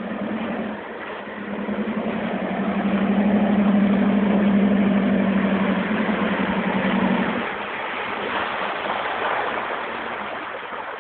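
A 4x4 truck's engine running steadily under load as the truck churns through deep mud and water, with mud and water sloshing around it. The engine note grows louder over the first few seconds, holds, then drops back about seven seconds in.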